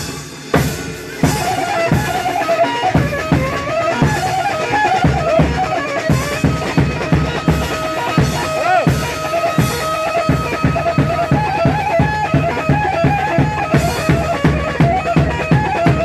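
Bağlama (long-necked Turkish saz) playing a wavering, ornamented melody over a steady drum beat of about two to three strokes a second.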